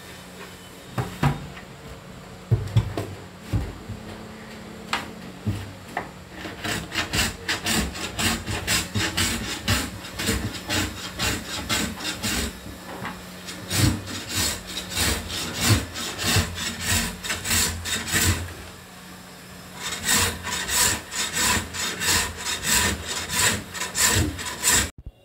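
A wooden block rubbed hard back and forth over a laminate-faced plywood cabinet door, in quick, even strokes about three a second. A few knocks and shifts of the board come first, and the rubbing stops for a moment two-thirds of the way in.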